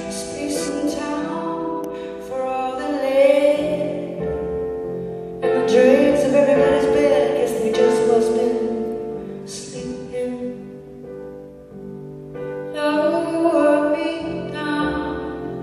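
A woman singing a slow song live while accompanying herself on piano. Her voice comes in long phrases with two short breaks, during which the piano chords carry on.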